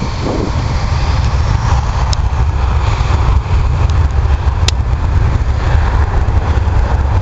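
Airbus A320 jet engines at takeoff power as the airliner accelerates down the runway: a loud, steady roar with a deep rumble underneath.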